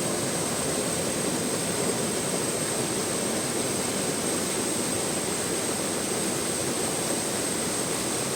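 Waterfall rushing: a steady, even noise of falling water that holds the same level throughout.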